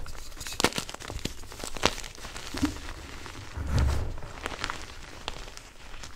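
BSN Plain Jane gym chalk being crushed and squeezed by hand: crunchy, irregular crackles and snaps as the soft blocks and crumbs break apart. A dull low thump comes about two-thirds of the way through.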